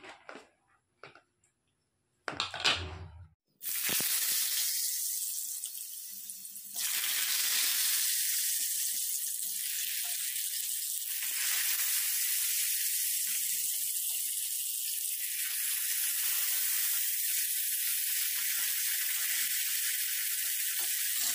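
Cut pieces of elephant foot yam (ol) sizzling steadily as they fry in hot mustard oil in an iron kadhai; the sizzle starts about three and a half seconds in, after a few knocks and a thump.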